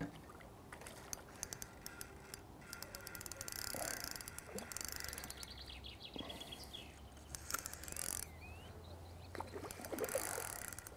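Fishing reel's clutch (drag) ticking in short runs as a hooked fish pulls line off the spool, the clutch giving line under the fish's pull. The ticks are faint, with a quick even run about four seconds in.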